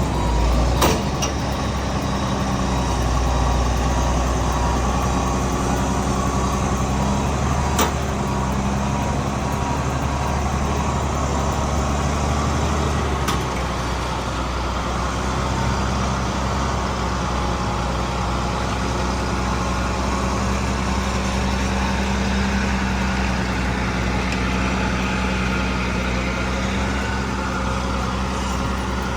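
A heavy logging truck's engine running steadily, its low hum shifting about halfway through.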